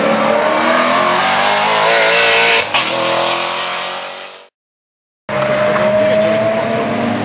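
Maserati GranTurismo race car's V8 running hard, its pitch going up and down, with one short sharp crack about two and a half seconds in. The sound fades out to a moment of silence, then a Porsche Cup car's flat-six comes in, its pitch rising steadily.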